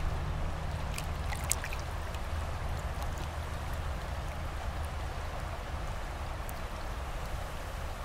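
River water flowing steadily over a shallow bank, with a low rumble underneath. A few small clicks come about a second in.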